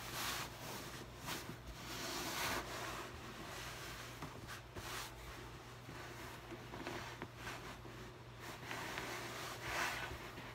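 Hand rubbing and patting over a cotton shirt stretched tight across an inflated belly: irregular rustling and scraping strokes, with a faint steady low hum underneath.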